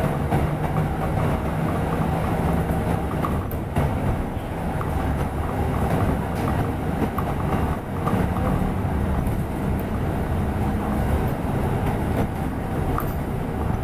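Interior sound of a double-decker bus on the move, heard from the upper deck: a steady engine drone and road rumble with light rattles, the engine note shifting a little higher about halfway through.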